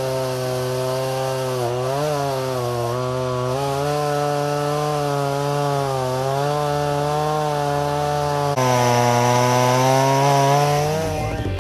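Chainsaw running at high speed and cutting a fallen tree trunk, its pitch sagging and recovering several times as it bites into the wood.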